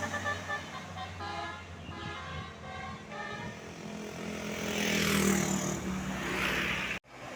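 Tour bus's Basuri telolet musical horn playing a quick tune of short, stepped notes. The bus then swells past and fades. The sound cuts off abruptly near the end.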